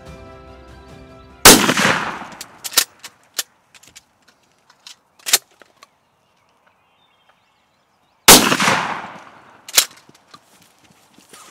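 Two shotgun blasts at a turkey, the first about a second and a half in and the second about seven seconds later, each cracking loud and dying away over about a second. A few short sharp clicks fall between them.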